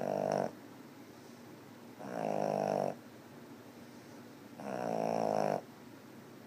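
A sleeping pet snoring. Each snore is a drawn-out, buzzing sound about a second long, coming roughly every two and a half seconds: the tail of one at the start, then two full snores.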